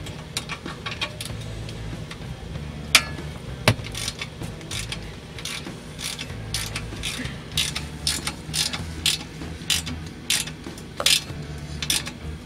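Ratchet wrench clicking as it tightens the bolt of a band clamp on a turbo exhaust pipe. It gives strings of short, sharp clicks, a few at a time with gaps between, coming faster in the second half.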